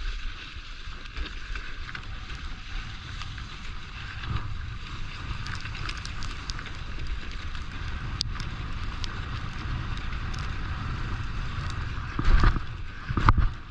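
Wind buffeting the microphone over a steady rushing noise of fast travel behind a dog team. A few loud low thumps come near the end.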